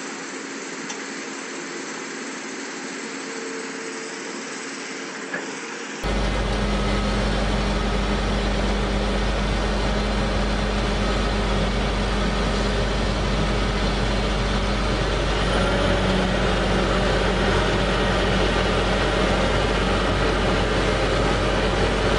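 Excavator diesel engines running steadily, with no revving. About six seconds in the sound cuts to a louder, denser engine noise with a deep rumble.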